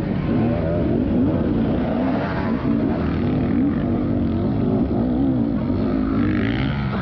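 Trail motorcycle engine running continuously, its pitch rising and falling repeatedly with changes of throttle.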